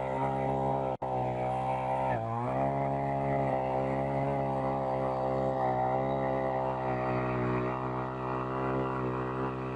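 The 49 cc two-stroke engine of a Takyo TK-2P earth auger running hard as its 15 cm bit drills into the soil: a steady, loud drone whose pitch dips briefly about two seconds in and then recovers.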